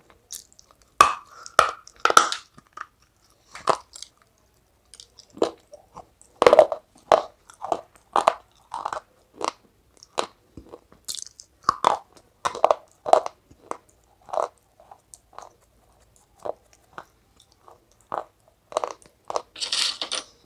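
Close-miked crunching and chewing of brittle white pieces, one or two sharp crunches a second at an uneven pace. Near the end there is a short dense scrape as a hand picks through the pieces on the tray.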